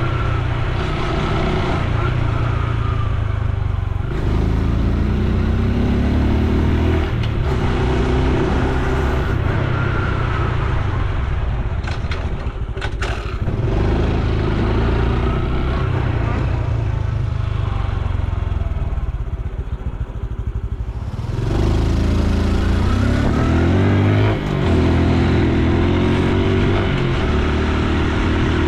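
Honda Super Cub C125 single-cylinder engine and exhaust while riding. The engine climbs in pitch as it accelerates about four seconds in and again about twenty-one seconds in, drops sharply at a gear change near the end, and eases off in between.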